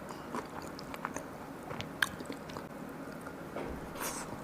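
A person chewing food close to the microphone, with small wet mouth clicks and one sharper click about two seconds in.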